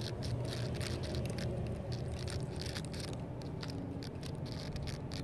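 Soft irregular taps and rustles, several a second, from footsteps and handling of the recording phone, over a steady low hum.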